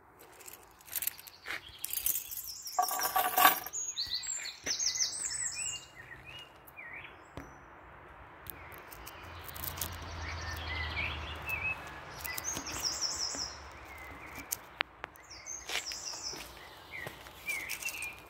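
Small birds chirping and singing, many short calls, with one brief harsh louder noise about three seconds in and a faint low rumble around ten seconds in.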